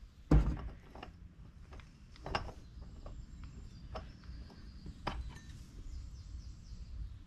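Metal parts of a Stihl MS 200T chainsaw's clutch being handled on the bench: one knock about a third of a second in, then scattered light clicks and clinks as the clutch is lifted off the crankshaft.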